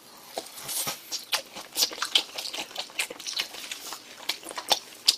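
A man chewing a mouthful of grilled pork belly: irregular clicking and smacking mouth sounds.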